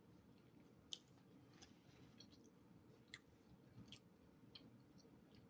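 Faint, close-up chewing of a mouthful of loaded ground beef taco: small wet mouth clicks and crunches at irregular intervals, about seven in all.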